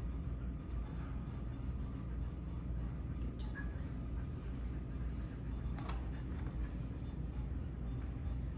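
Steady low background rumble of room noise, with two faint clicks about three and a half and six seconds in.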